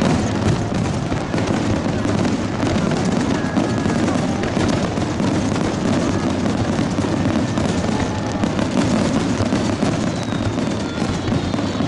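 Aerial fireworks going off in a rapid, continuous barrage: many overlapping bangs and crackles merging into a steady rumble.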